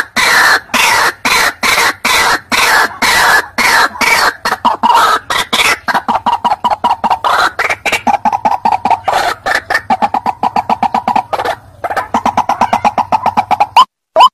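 White-breasted waterhen calling: a loud, fast run of harsh, rapidly repeated notes that settles into quick pulsing on one pitch, breaking near the end into separate short upward-sliding notes.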